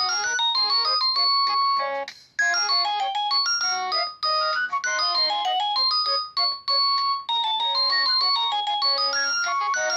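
A Philips S200 ringtone playing through a Nokia C2-01 phone's loudspeaker: a quick synthesized melody of short notes, with a brief break about two seconds in.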